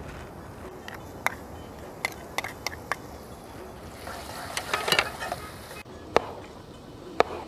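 Onions frying in desi ghee in a pot with a low steady sizzle. Sharp clicks and knocks of utensils come several times, with a busier clatter about five seconds in.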